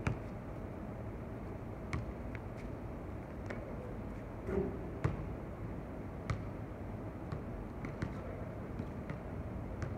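Basketball bouncing on an outdoor hard court: sharp single knocks at uneven intervals, roughly one every second or so, over a steady low hum of background noise.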